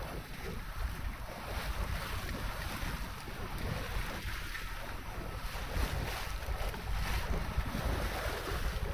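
Wind buffeting the microphone over water washing along the hull of a small yacht under sail, in uneven gusts with no engine.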